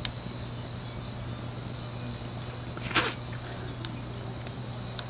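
Crickets chirping steadily over a low steady hum, with one short sharp knock or rustle about three seconds in.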